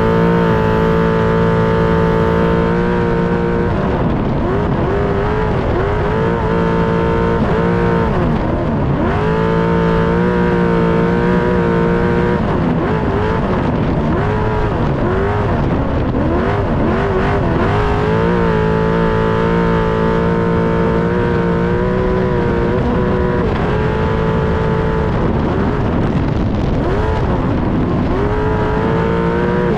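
Desert race truck's engine running hard under full throttle. The revs repeatedly drop and climb again as the driver lifts and shifts between gears, over a steady rumble of the chassis and tyres on dirt.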